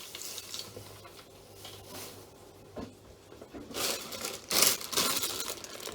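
Plastic grocery packaging crinkling as produce is handled, on and off, louder in the last two seconds.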